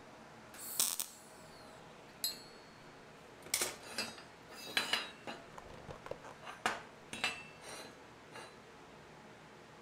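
Small scrap-metal parts clinking and knocking as they are handled, in irregular strokes, a few of them ringing briefly with a high tone.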